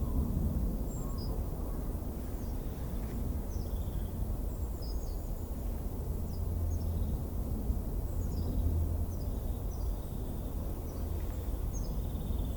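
Winter forest ambience: a steady low rumble of wind, with small birds giving short, high chirps and calls scattered throughout.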